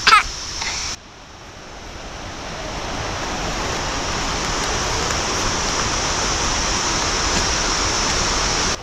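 Rushing water of a forest stream or small waterfall, a steady even noise that grows gradually louder over several seconds, then cuts off abruptly near the end. A child's short shout comes at the very start.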